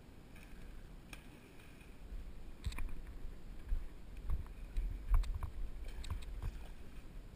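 Low wind rumble on the camera microphone, with a run of sharp clicks and knocks from about two and a half seconds in as the spinning rod and reel are handled and cranked.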